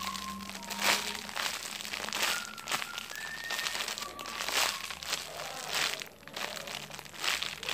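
Clear plastic wrapping crinkling irregularly as a squishy toy inside it is handled in the hands.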